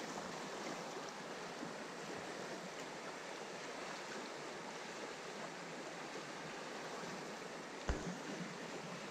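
River current rushing steadily over the riverbed. One brief low thump sounds near the end.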